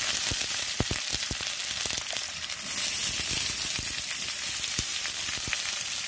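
Chopped onions frying in hot oil in a kadai: a steady sizzle with small crackling pops, stirred by hand. The sizzle grows louder a little under halfway through.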